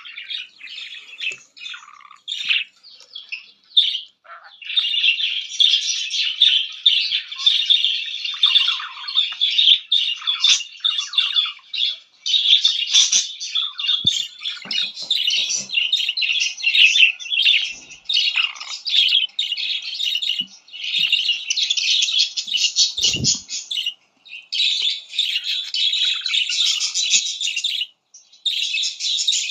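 Budgerigar warbling and chattering almost without a break, a fast run of short chirps, clicks and squawks, stopping briefly twice near the end.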